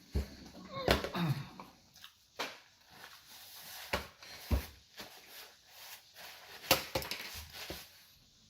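Close-miked eating sounds: a person chewing a fast-food sandwich, with irregular wet mouth clicks and smacks.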